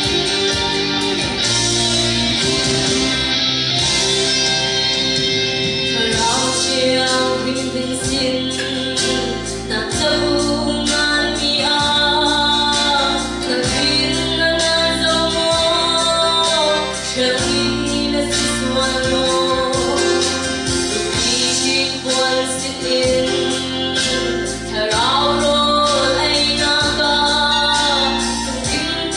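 A woman singing into a microphone over instrumental backing music. The music plays alone for about the first six seconds before her voice comes in.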